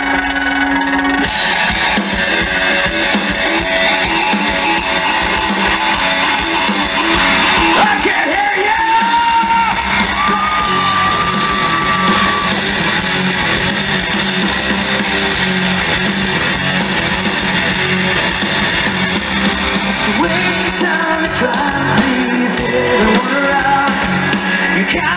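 Hard rock band playing live, with distorted electric guitar, bass guitar and drums. A bending, then held high note stands out about eight to twelve seconds in.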